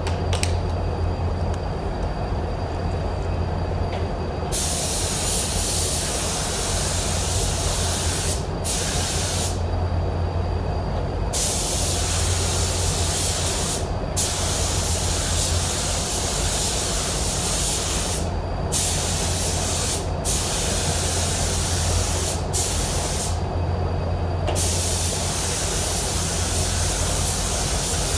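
Spray gun atomizing solvent basecoat onto a truck bedside: a hissing spray that starts about four and a half seconds in and comes in passes, breaking off briefly several times as the trigger is let go. Underneath runs a steady low hum from the paint booth's air system.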